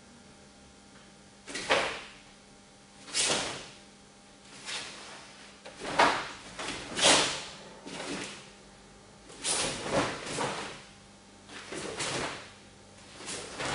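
Karate techniques from a solo kata: sharp swishes and snaps of the cotton gi as punches, blocks and turns are thrown, with bare feet stepping on foam mats. About a dozen short sounds come at irregular intervals, the first about a second and a half in.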